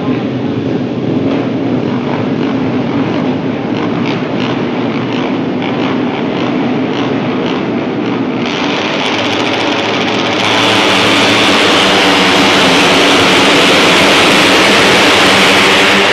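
A field of racing motorcycles running on the starting grid, then, about eight seconds in, pulling away together at full throttle. The engine sound swells sharply, gets louder again about two seconds later, and stays loud to the end.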